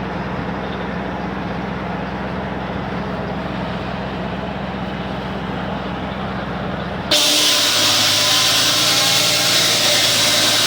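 Homemade sawmill's engine running steadily with a low hum. About seven seconds in the sound jumps abruptly to a louder, hissier machine running.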